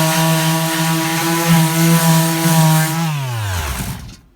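Electric sander running steadily against a planed piece of dried Christmas-tree wood: a steady motor hum with a rasping hiss on top. About three seconds in it is switched off and winds down with a falling pitch.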